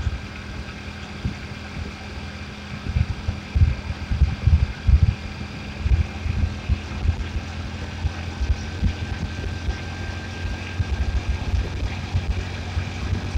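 Wind buffeting the phone's microphone in irregular gusts while riding a motorbike, over the bike's steady running hum.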